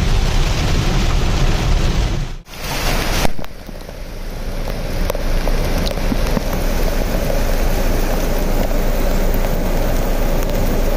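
Heavy rain with strong wind noise on the microphone. After a cut about two and a half seconds in, a steady rush of floodwater running across a road, with rain falling.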